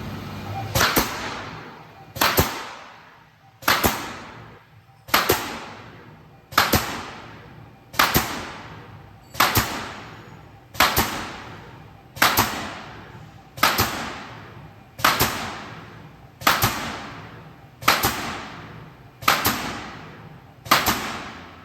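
Sound-absorbing board stitching machine running in a steady cycle: fifteen sharp strokes, about one every one and a half seconds, each followed by a fading hiss lasting about a second.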